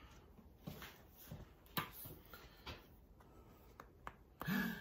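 Faint, scattered clicks and taps of hand handling as a plastic wood-glue bottle is picked up near the clamped boards.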